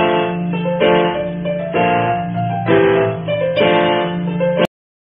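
Background music, with a new chord about once a second, cutting off suddenly near the end.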